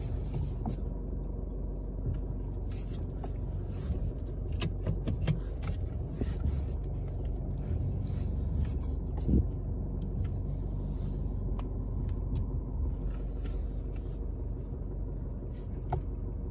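Inside the cabin of a 2020 Isuzu driving slowly: steady engine and road rumble, with scattered light clicks and knocks. A louder knock comes about nine seconds in.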